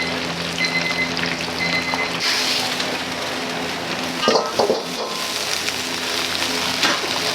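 Food frying and sizzling in a commercial kitchen over a low steady hum, with short high beeps in the first two seconds and a few sharp knocks about four seconds in.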